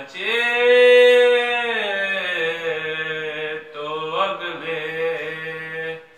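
A man's solo voice chanting a salam, a Shia Urdu elegy of Muharram mourning, in a slow, melodic recitation. He holds one long note for about a second and a half near the start, then carries the melody on in shorter phrases.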